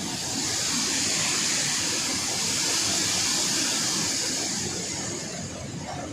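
Rushing water pouring through open dam spillway gates: a steady, loud hiss that swells about half a second in and eases near the end.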